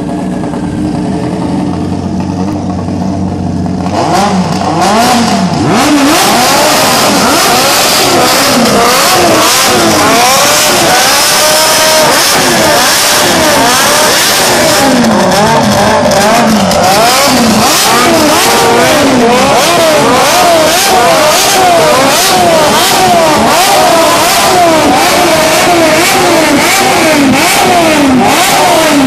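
Honda CBX 750's air-cooled inline-four engine idling, then revved up and down over and over from about four seconds in, running loud.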